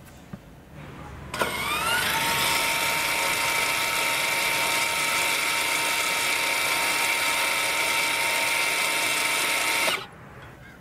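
Toyota RAV4's rear electric parking brake actuator, the motor on the rear caliper, running as it unwinds the caliper piston all the way back for brake service mode. A steady geared whine that rises briefly in pitch as it starts about a second and a half in, runs for about eight seconds and cuts off suddenly near the end.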